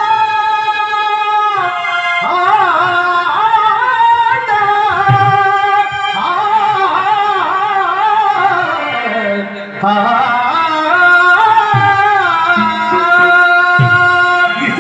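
A man singing a slow Tamil stage-drama song with a wavering, ornamented melody, over held keyboard notes and occasional tabla strokes.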